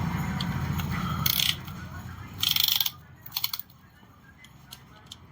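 Hand tools working on an engine block under rebuild: three short bursts of metallic clicking and clinking in the first three and a half seconds, then quieter. Under the first one and a half seconds runs a low rumble that then fades out.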